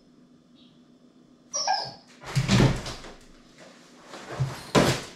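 A husky gives a short whine about a second and a half in, then a series of knocks and thumps as it jumps up with its paws against a kitchen appliance. The sharpest thump comes near the end.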